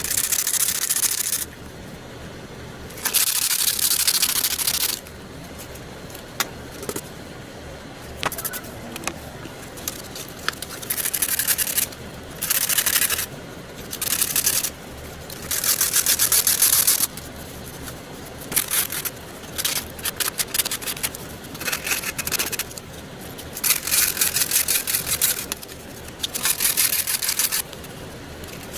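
Hand sanding: rough rubbing strokes of half a second to two seconds each, about a dozen, with short pauses between.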